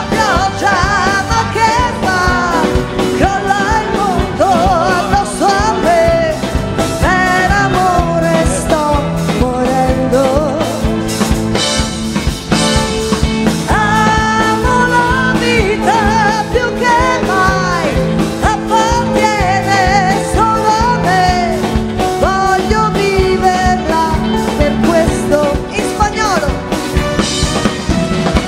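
Live band playing a pop-rock song: a woman sings over electric bass, acoustic guitar and drums, with a steady beat.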